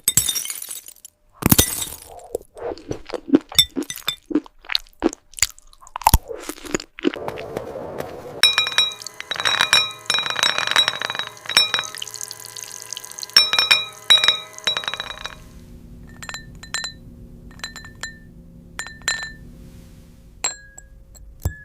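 Glass-food ASMR sounds: sharp cracking and crunching of brittle glass, then many ringing glassy clinks and taps with clear pitched tones, a dense cluster in the middle and sparser single taps near the end.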